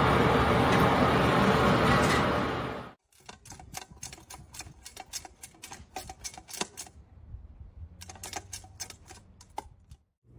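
About three seconds of loud, steady noise that cuts off, then a run of quick, irregular clicks and taps with a short pause in the middle.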